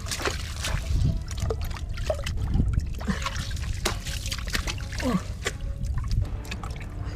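Shallow muddy water splashing and sloshing, with many short splashes and a few gurgling sounds.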